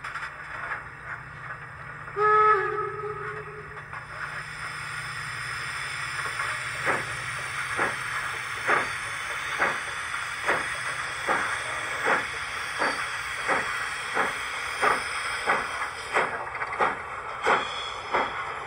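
Garden-scale model BR 50 steam locomotive's onboard sound: a short steam whistle blast about two seconds in, over a steady hiss. Exhaust chuffs start around seven seconds in, about one a second, and quicken steadily as the engine gets under way.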